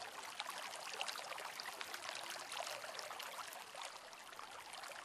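Faint, steady background sound of running water, a trickling, pattering hiss with many small crackles.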